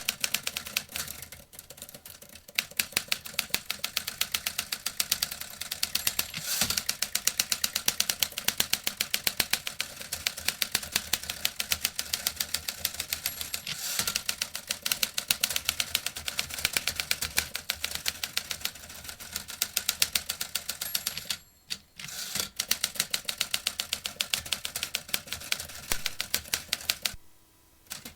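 Vintage typewriter being typed on: a fast, steady run of key strikes, several a second, breaking off briefly about two-thirds of the way through and again near the end.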